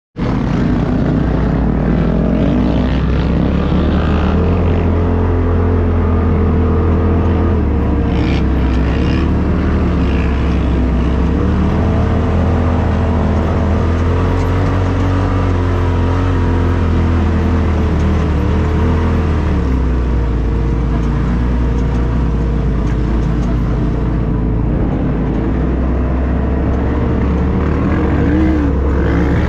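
Polaris RZR Turbo S side-by-side's turbocharged twin-cylinder engine running steadily under load while driving over sand, heard from inside the open cab, its pitch rising and falling gently with the throttle.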